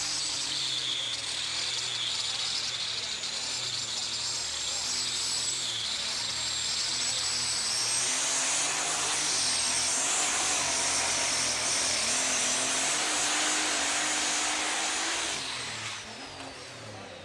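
Super stock pulling tractor's turbocharged diesel engine running flat out while hauling a weight-transfer sled, with a high turbo whistle over the engine that climbs higher about halfway through. Near the end the engine backs off and the sound drops sharply as the pull ends.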